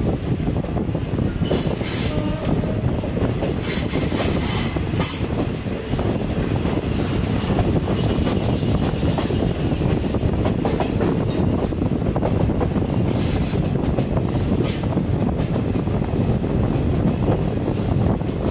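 Passenger train running along the track, heard from an open coach doorway: a steady rolling rumble of wheels on rails with a few short, high-pitched wheel squeals as the train takes a curve.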